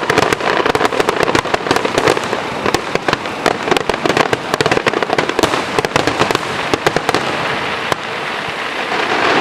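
Rapid crackling and popping of a fireworks finale barrage, many shells bursting at once. It thins out about eight seconds in, leaving a steady wash of noise.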